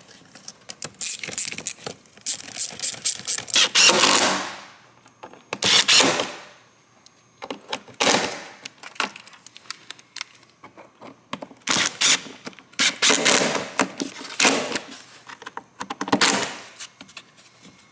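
DeWalt cordless driver running in repeated short bursts, tightening the fasteners on the air filter housing and intake, with its motor winding down after some bursts. Hand ratchet clicking near the start.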